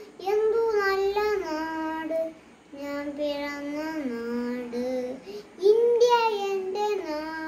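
A young boy singing a Malayalam patriotic song without accompaniment, in three long, held phrases.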